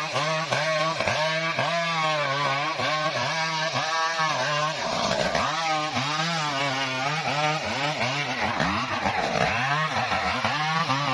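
Two-stroke gas chainsaw running under load while cutting wood, its engine pitch dipping and recovering over and over as the chain bites.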